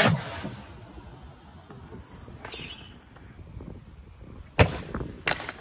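Skateboard on a concrete skatepark: the board clacks onto the ground from a flip trick and its wheels roll briefly, then a second, louder slap of the board on the concrete comes about four and a half seconds in, with a smaller knock just after.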